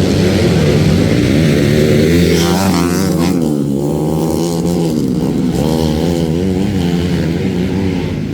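Motocross motorcycle engine running hard, its pitch rising and falling repeatedly with the throttle.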